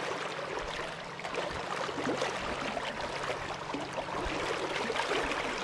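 Stream water running fast through a shallow riffle: a steady rush with fine splashing and gurgling from the high current.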